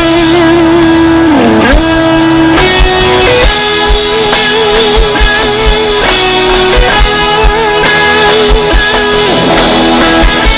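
Rock music: an electric guitar plays a sustained lead melody with vibrato and swooping downward bends over a steady drum beat.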